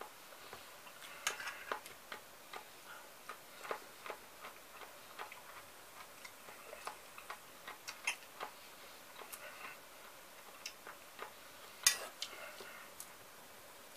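Metal spoon clinking and scraping in an enamel pot of sliced cucumber salad, in irregular sharp clicks with the loudest near the end, mixed with the crunch of cucumber being chewed.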